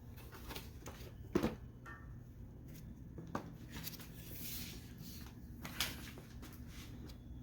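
Plastic housing of a Hoover FloorMate Deluxe SpinScrub being pulled apart by hand after its screws are out: a few light clicks and knocks of plastic, the sharpest about a second and a half in, with faint rubbing and rustling between.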